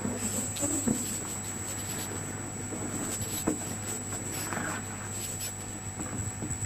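Soft paper rustles and small handling clicks at a desk microphone, over a steady low electrical hum and a thin high whine.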